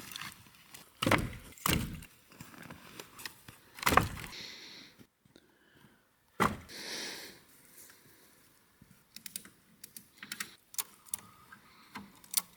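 Footsteps crunching in frozen snow, uneven. A few heavy crunches come in the first half, followed by lighter, quicker ones near the end.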